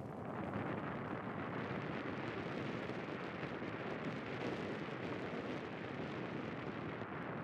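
Steady rushing noise from a car driving along a country lane: wind on the microphone mixed with tyre and road noise. It comes up suddenly at the start and then holds even.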